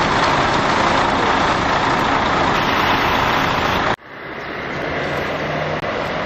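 Articulated diesel truck pulling past close by on wet pavement, a steady loud rush of engine and tyre noise. It cuts off abruptly about four seconds in, and a quieter truck engine running with a low hum takes over.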